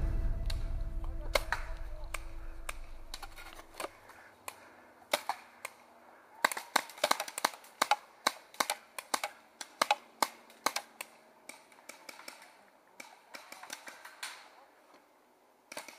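Paintball markers firing: scattered sharp pops, then a dense run of shots at several a second through the middle, thinning out toward the end. A low rumble fades away over the first few seconds.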